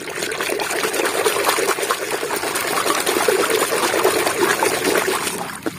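Muddy water sloshing and splashing steadily in a plastic basin as a hand scrubs a mud-caked toy bus under the water.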